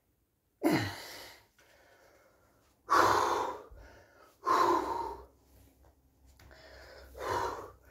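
A man breathing heavily, four loud breaths spaced a second or two apart, as he catches his breath after a set of shoulder exercises.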